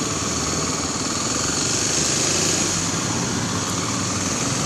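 Motorcycle engine running steadily, the rider's Kawasaki KLX300SM single-cylinder dual-sport.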